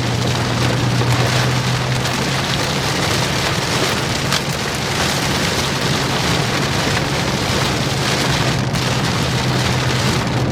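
Heavy rain pelting a moving vehicle during a severe thunderstorm, heard from inside: a loud, dense, steady hiss, with a steady low hum underneath.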